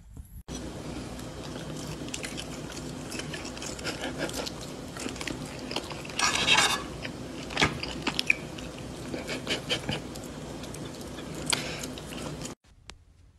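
A fork scraping and tapping on a plate, with chewing and crunching, over a steady hum. There is a louder crunchy burst about six seconds in, and the sound cuts off sharply near the end.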